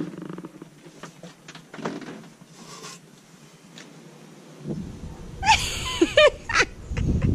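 A cat meowing a few times, short calls that rise and fall in pitch, over wind rumbling on the microphone. Before that, scattered faint clicks and knocks.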